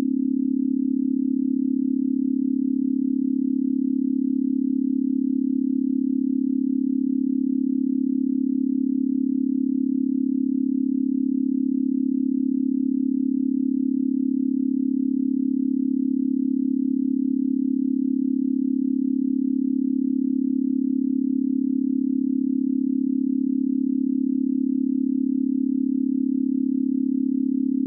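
A single steady low electronic tone, unchanging in pitch and loudness, played as the 'sound' of the dwarf planet Orcus.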